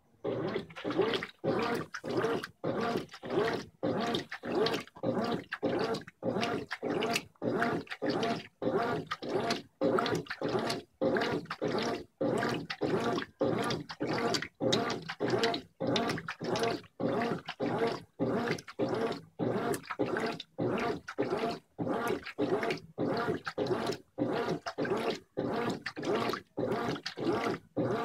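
Brastemp 15 kg top-load washer's agitator churning a full load of water and clothes in rapid, regular back-and-forth strokes, about two a second. Each stroke is a sloshing, gurgling surge of water with a short pause between.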